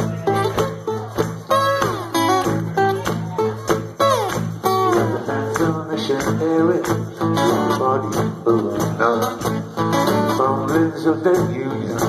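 Live acoustic band playing a blues-country song: strummed acoustic guitar and a steady bass line under a singing voice, heard through the venue's PA.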